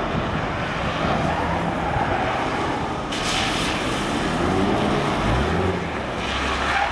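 Car driven hard on a wet handling course: a steady engine drone with hissing tyre spray, and an engine note rising about five seconds in.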